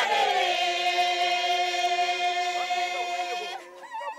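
Singing: one long held note that fades out near the end, followed by a brief lull.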